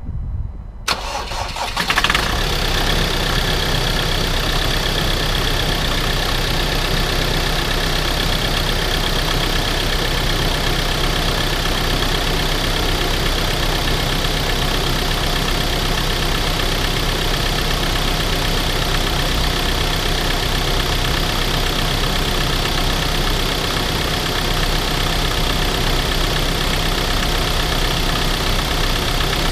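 Ford Transit 2.2 TDCi four-cylinder common-rail turbodiesel cold-started at −4 °C after standing two weeks outside: the starter cranks briefly from about a second in, the engine catches about two seconds in, then idles steadily.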